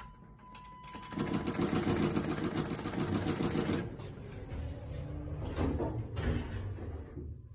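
Thyssenkrupp impulse hydraulic elevator in operation. A steady tone sounds for about a second, then a fast, even mechanical rattle runs for nearly three seconds, stops abruptly, and gives way to a lower, steady running sound.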